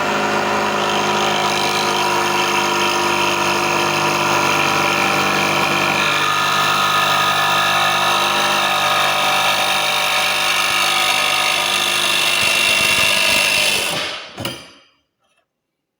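Jigsaw with a 17-tooth bi-metal aluminium blade sawing through an aluminium C-channel bar, running steadily for about fourteen seconds before it stops, followed by a short knock.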